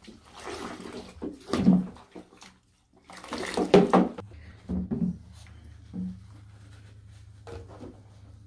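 Water poured from a cup and splashed over a small dog in a foamy bathtub, in several bursts, the loudest about three to four seconds in.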